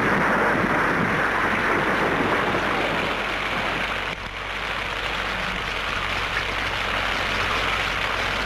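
Large fire burning with a steady rush and crackle: the blown-up truck in flames. The level dips briefly about four seconds in.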